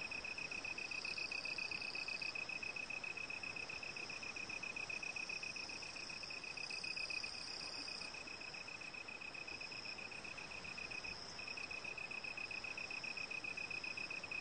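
Crickets trilling: a steady, rapid, high-pitched pulsing that breaks off briefly about eleven seconds in, with a fainter, higher steady buzz above it.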